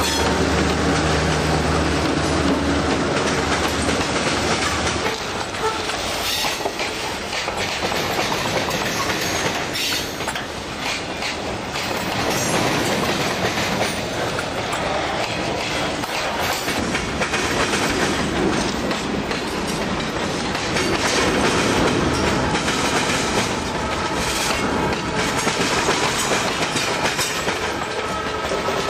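A freight train passing close by: a diesel locomotive's engine drones steadily for the first few seconds, then loaded freight cars roll past with their steel wheels clattering over the rail joints in a steady clickety-clack.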